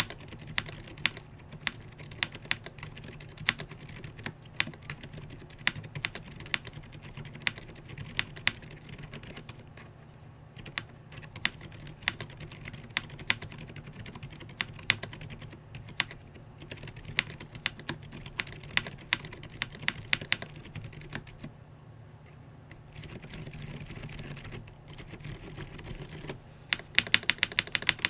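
Typing on a JRIS65 gasket-mounted aluminum keyboard fitted with Boba U4 silent switches and GMK keycaps: soft, muted keystrokes in irregular runs with short pauses, and a fast flurry near the end.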